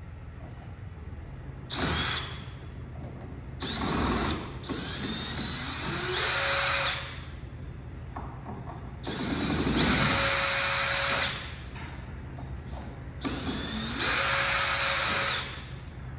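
Power drill run in about five short bursts, each spinning up with a rising whine and then holding a steady pitch, driving out the bolts that hold an engine shipping crate together.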